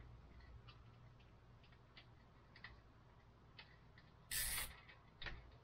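Small parts being handled while a plastic mud guard is fitted to a bicycle: faint, scattered light clicks and ticks, then one short, loud rasp about four and a half seconds in.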